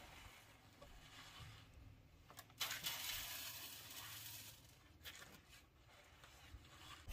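Handfuls of grain poured onto the metal mesh of a wooden-rimmed sieve: a dry, hissing rustle that starts a little before the middle and lasts about two and a half seconds, with fainter rustles around it.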